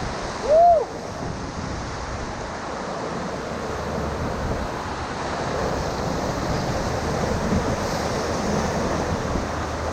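Whitewater rushing steadily around a paddle raft on the Middle Ocoee River, growing a little louder over the seconds, with wind buffeting the microphone. About half a second in, a brief high-pitched call stands out above the water.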